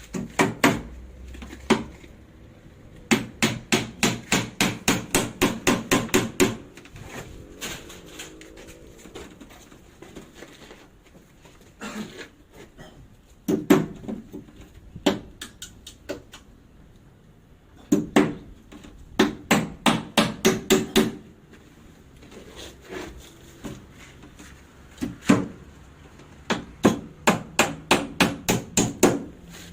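Hammer driving nails into wooden concrete formwork boards: runs of rapid, even blows, about four a second, broken by short pauses and a few single knocks.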